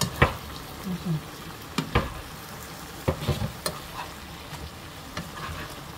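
Cubed eggplant and carrot sizzling in a frying pan while being stir-fried, with a metal spoon clacking against the pan a few times.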